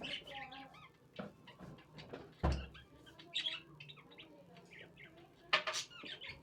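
Birds chirping in the background, with a low thump about two and a half seconds in and a sharp knock about five and a half seconds in.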